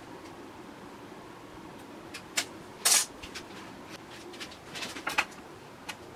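A few sharp clicks and knocks of a steel rule and pen being handled and set down on a pine board on a wooden workbench, loudest about three seconds in, over a steady low hum.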